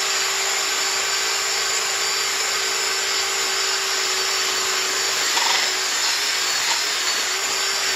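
Cordless drill running steadily, spinning a cleaning attachment against the cast iron cylinder bore of a Chevy small-block block: a constant motor whine over an even scrubbing hiss. It stops near the end.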